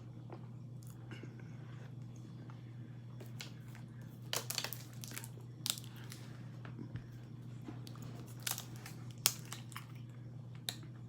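A person biting and chewing frozen cornstarch: irregular crisp crunches, starting about four seconds in, over a steady low hum.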